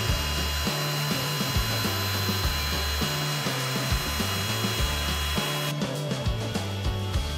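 Drill-driven paddle mixer churning self-leveling floor compound in a bucket: a steady motor whine and rasp that cuts off suddenly about six seconds in. Background music with a repeating bass line plays throughout.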